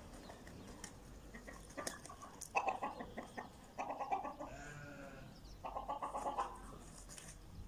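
Domestic chickens calling: three loud, rasping squawks or cackles, each lasting about half a second to a second, coming about a third, a half and three-quarters of the way through.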